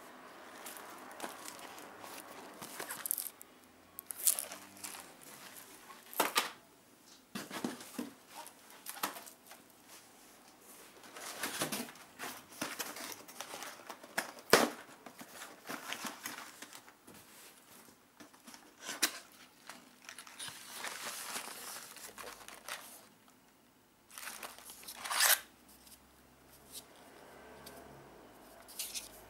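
Plastic shrink-wrap crinkling and being torn off a cardboard box, with the box's flaps handled, in irregular rustling bursts and a few sharp snaps.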